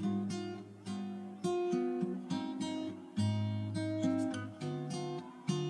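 Background music on a plucked and strummed acoustic guitar: a run of single notes and chords, each struck sharply and dying away.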